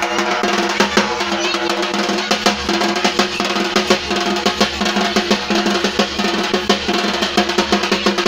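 Fast, dense drumming with steady held tones underneath: dance music with rapid drum strokes.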